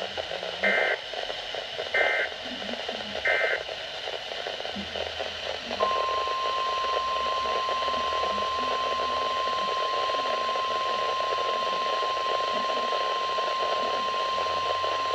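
Weatheradio Canada alert signal from a weather radio over steady static hiss. It opens with three short bursts of digital SAME header data about a second and a half apart. From about six seconds in comes a steady single-pitch 1050 Hz warning alarm tone, announcing a severe thunderstorm warning.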